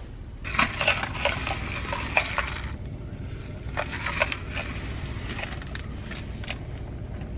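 Steady low rumble of a car cabin, with two spells of crackling and rustling handling noise, a plastic cup and its contents being moved about, plus a few scattered clicks.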